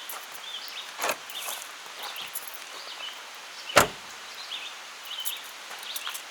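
A vehicle door shut with a single sharp thud a little under four seconds in, after a lighter clunk about a second in. Faint high chirps sound throughout.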